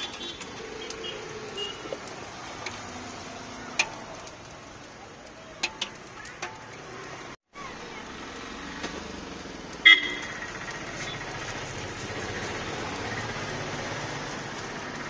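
Street traffic: motorbikes and other vehicles going by, with a short vehicle horn toot about ten seconds in and a few sharp clicks.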